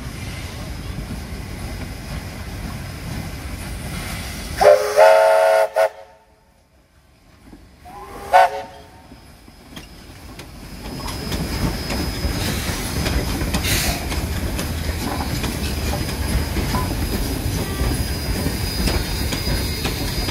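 Steam locomotive whistle blown twice, a blast of about a second and then a short toot a few seconds later. The steady rumble of a double-headed steam train then builds as it passes close by.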